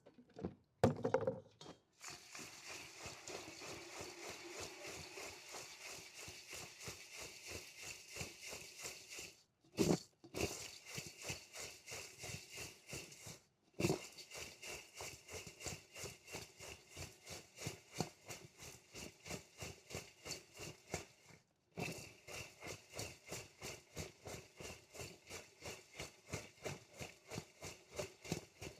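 A soft, wet, tofu-like 'mixed mold tofu' material being worked by hand, making a rhythmic run of sticky squelching clicks about three to four a second. There are brief pauses a few times, and some louder squishes.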